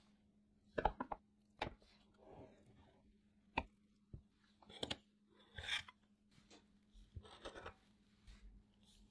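A knife cutting through a soft layered tiramisu in a dish, with a few sharp taps of the blade against the dish around one second in and again near four seconds. Then comes soft scraping as a slice is worked loose and lifted out.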